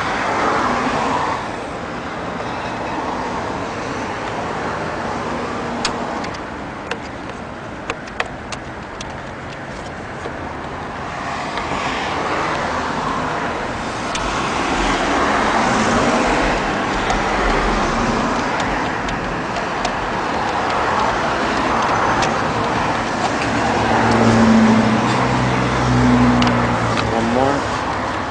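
Road traffic passing by, a steady wash of car noise that swells and fades, with a few sharp clicks about six to eight seconds in.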